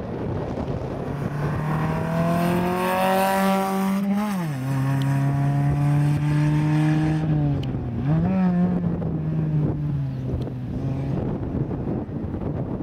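Mitsubishi Colt rally car's engine at full throttle, climbing in pitch as it accelerates. About four seconds in the pitch drops sharply, then holds steady. Near eight seconds it dips briefly and recovers, and the sound fades after about eleven seconds.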